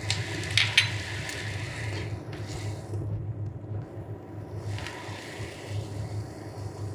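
Chopped tomatoes sizzling in hot oil and fried onion paste in a nonstick kadai, with a steel spoon clicking and scraping as it stirs. The sizzle is strongest for the first two seconds, then fades and comes back briefly around five seconds, over a steady low hum.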